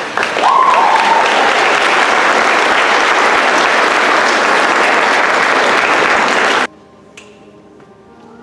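Audience applauding loudly, with a rising whoop or whistle about half a second in. The applause cuts off abruptly near the end, leaving soft music.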